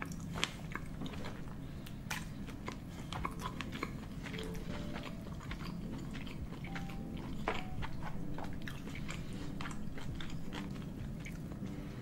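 Close-miked eating: a mouthful of sausage dipped in cheddar cheese sauce being chewed, with many short wet clicks and smacks.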